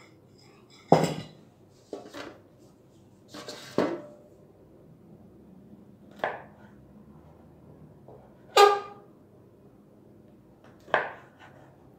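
Kitchen knife cutting through rolled bread dough and striking a wooden board: several separate sharp knocks and clinks a second or two apart, one ringing briefly about two-thirds of the way in.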